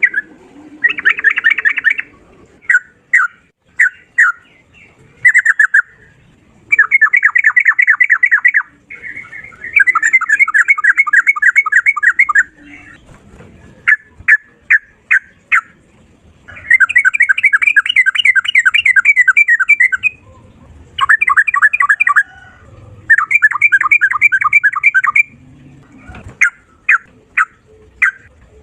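A sooty-headed bulbul (trucukan) sings its loud, fast 'ropel' song: rapid runs of repeated notes lasting a few seconds each, broken by short pauses and single notes.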